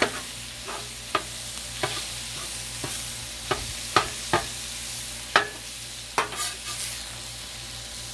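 Raw ground beef sizzling on a hot Blackstone steel griddle top while a metal spatula chops it up, clacking and scraping against the steel. The sharp irregular clacks come about once a second over a steady sizzle.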